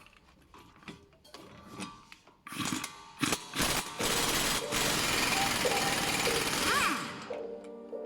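Tools working on the brake hardware: scattered clicks and ticks, then a few short bursts and about three seconds of loud, even rushing-rattling noise before it stops, over background music.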